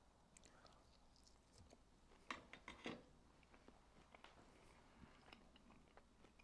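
Near silence with a few faint, short clicks and small handling noises, the clearest a cluster about two to three seconds in.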